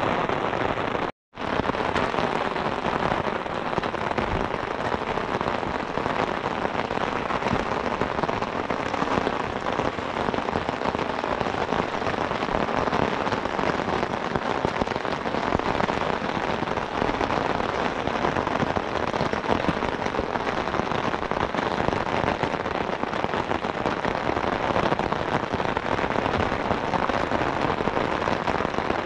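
Heavy, steady rain: a dense patter of drops, broken once by a moment of silence about a second in.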